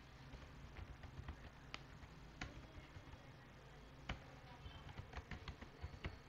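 Computer keyboard being typed on: faint, irregular keystrokes, with a few louder key presses in the second half.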